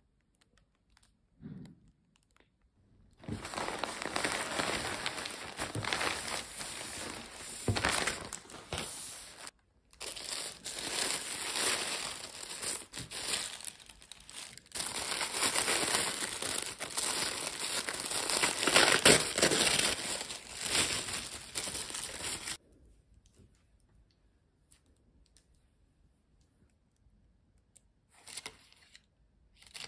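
Crinkling and tearing of a plastic mailer bag and tissue-paper wrapping as a parcel is opened and unwrapped by hand. It starts about three seconds in, breaks off briefly, and stops some seven seconds before the end, leaving only faint handling.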